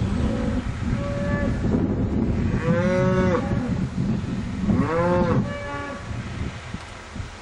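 Beef cattle in a herd mooing: several calls from different animals, the two loudest long moos about three and five seconds in, with shorter, fainter ones around them, over a steady low rumble.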